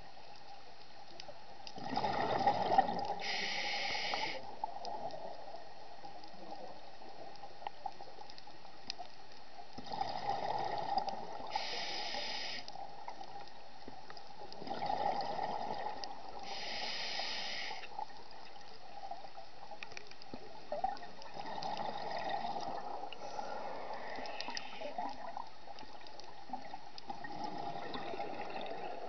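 Scuba diver breathing through a regulator underwater: a burst of exhaled bubbles, then a short hiss of inhalation through the demand valve, repeating every five to eight seconds. The later breaths are fainter.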